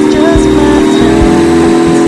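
Airboat engine and propeller running steadily at speed, a loud steady drone, with wind rumbling on the microphone.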